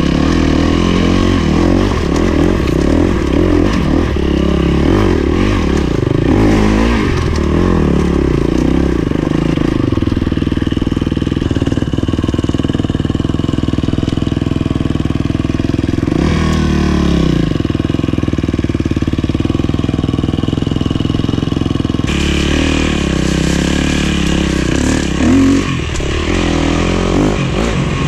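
KTM 250 SX-F dirt bike's single-cylinder four-stroke engine running under load while being ridden off-road, heard close up from the bike. The revs rise and fall continually with the throttle, with one sharp drop in revs about two-thirds of the way through.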